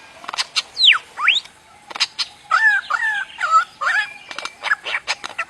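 A bird making strange, alien-like calls: sharp clicks, a whistle sweeping down and then one sweeping up, followed by a run of wavering warbled notes.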